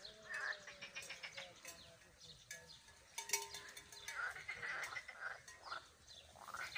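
A chorus of frogs, many short overlapping croaking calls repeating throughout.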